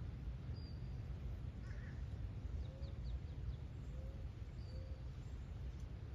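Faint bird calls: a few short, low, arched notes and some brief high chirps, over a steady low rumble.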